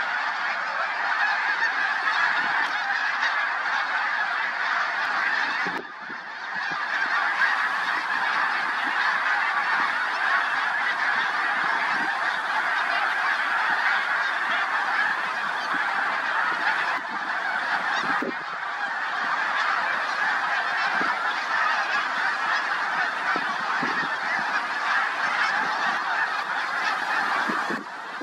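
A huge flock of snow geese in flight, hundreds of birds calling at once in a dense, unbroken chorus of honks. The sound dips briefly about six seconds in, then carries on as before.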